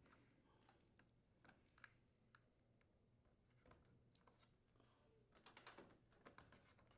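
Near silence with a few faint, scattered clicks and a quick run of soft clicks near the end: spark wire connectors being pushed onto the spark module's terminals.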